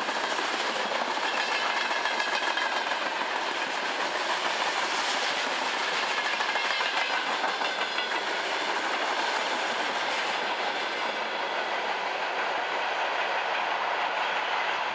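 Covered hopper wagons of a freight train rolling past, with steady wheel and rail noise.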